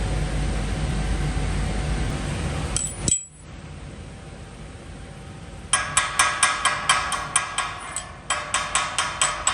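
Stick (SMAW) welding arc crackling and hissing steadily, then cutting off abruptly about three seconds in as the arc is broken. After a short quiet spell, rapid ringing metal-on-metal strikes, about four a second with a brief pause, typical of a chipping hammer knocking slag off the fresh weld.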